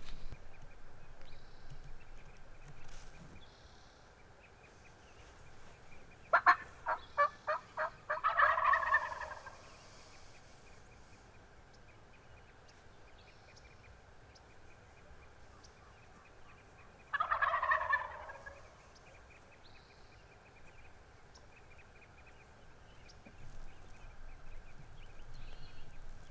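Wild turkey gobbler gobbling twice, about six seconds in and again about seventeen seconds in. The first gobble opens with a quick run of short notes.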